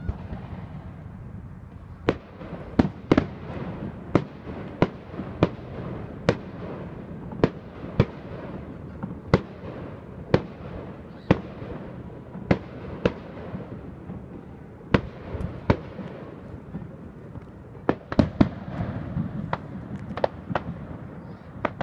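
Aerial fireworks shells bursting: about two dozen sharp bangs at irregular intervals, mostly half a second to a second apart, with a short lull and then a quicker cluster near the end.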